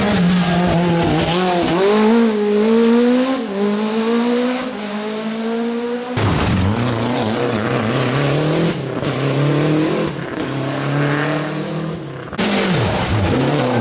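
Rally car engines revving hard, the pitch climbing and dropping back with each gear change. The sound cuts abruptly to a different car twice.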